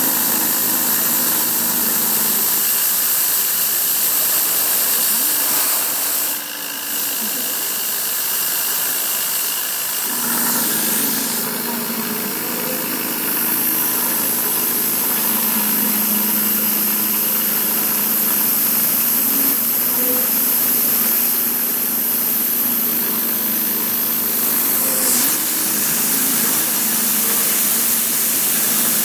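CNC engraving machine running, its spindle spinning a pointed engraving bit through clear plastic, with a high whine over a steady drone of motor tones that shift several times as the machine changes direction.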